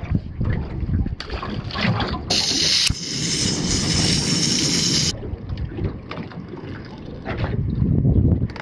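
Wind buffeting the microphone with water against a small boat's hull. About two seconds in, this cuts abruptly to a steady hiss from a gas camp-stove burner, lasting about three seconds before the wind noise returns.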